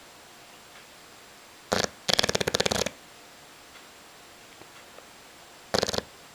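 English bulldog snoring: about two seconds in, a short snort and then a longer rattling snore lasting almost a second, and a second snore starting near the end.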